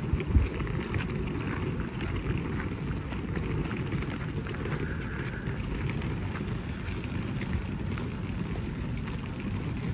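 Steady low rumble of outdoor noise, with a single thump shortly after the start.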